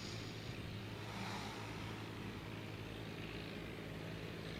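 Steady low hum under a soft hiss: room tone.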